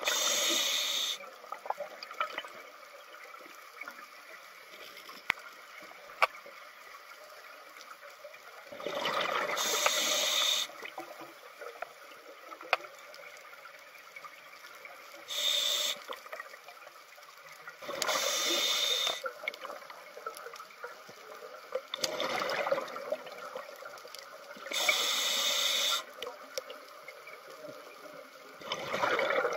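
Scuba diver breathing through a regulator underwater: a hissing inhale and a gurgling rush of exhaled bubbles come around every five seconds. Faint scattered clicks are heard between breaths.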